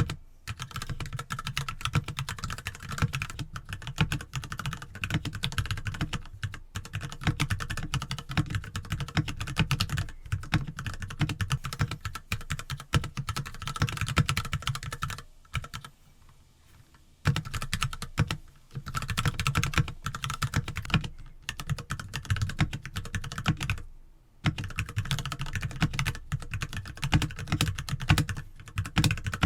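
Typing on an NK65 mechanical keyboard with Gateron Milky Yellow linear switches, lubed with water-based personal lubricant and massage oil, and PBT keycaps: a steady run of clacky keystrokes. The lube makes it less scratchy and pingy. The typing stops for a couple of seconds about halfway through.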